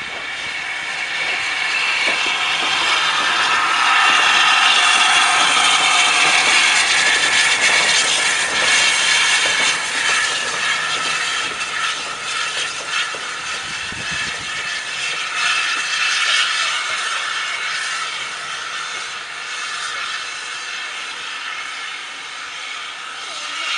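Steam locomotive passing close by, giving off a loud steady hiss of steam with a light mechanical clatter. The hiss builds for the first few seconds and eases off after about ten seconds.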